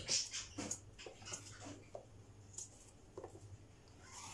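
Vegetable peeler scraping skin off an eggplant in short, irregular strokes, over a faint low hum.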